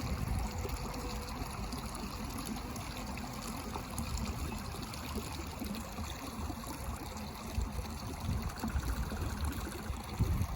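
Steady trickling, running water with a low, uneven rumble underneath.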